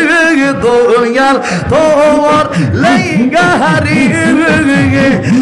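Male voice singing Bengali devotional zikir into a handheld microphone, the melody gliding and ornamented. From about halfway through, a rhythmic low vocal pulse, several beats a second, joins under the singing.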